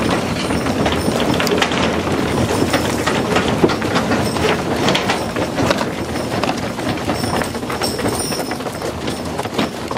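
A horse-drawn wagon and its towed trailer rattling and clattering steadily over a frozen snowy track, mixed with the hoofbeats of a pair of Hucul horses going at a gallop.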